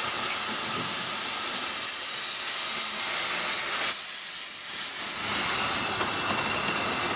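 Steady hiss of steam from MSC 0-6-0 side-tank steam locomotive No. 67, easing for a moment about four seconds in.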